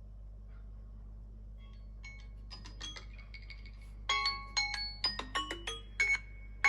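Samsung Galaxy phones' alarm tones ringing: chime-like mallet notes that come in faintly about two seconds in and turn loud from about four seconds in, a quick run of short, clear notes overlapping one another.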